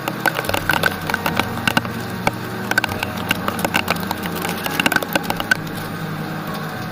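A rapid, irregular series of sharp clicks and taps over a steady low hum; the taps stop about two-thirds of the way through.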